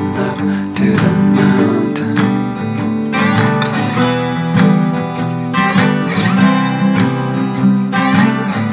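Instrumental passage of a folk song, led by guitar, with no singing.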